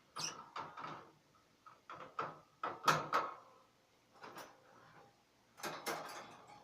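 Irregular knocking and rattling, like objects being handled or a door or cupboard moving, in about five short clusters; the loudest is about three seconds in.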